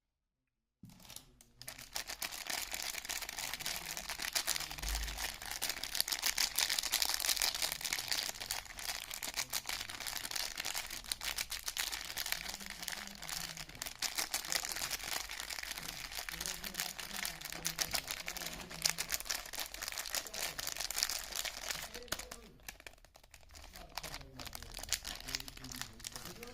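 Soap wrapper being crinkled, peeled and torn open by hand: a dense, crackly rustle that starts about a second in and eases off near the end.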